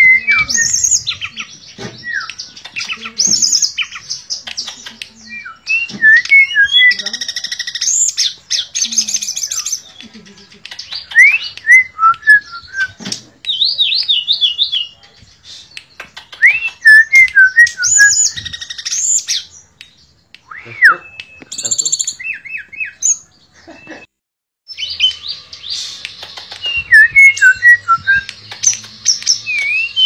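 Tledekan pring songbird singing loud phrases of whistled up-and-down notes, sharp chirps and fast rolling trills, with short pauses between phrases.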